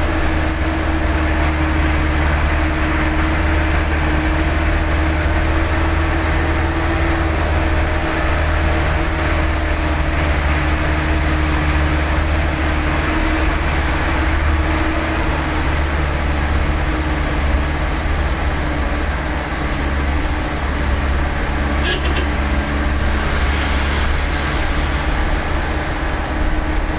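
Dump truck's diesel engine running steadily while driving, heard from inside the cab: a loud, low, even drone that holds one pitch throughout.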